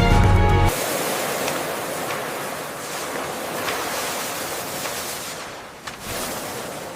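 Ocean waves washing in: a steady rushing surf noise that ebbs near the end and swells again.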